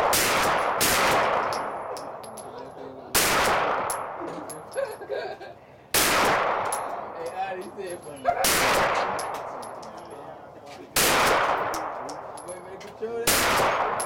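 Glock semi-automatic pistol fired in slow single shots, about one every two and a half seconds, each crack trailing off in a long echo.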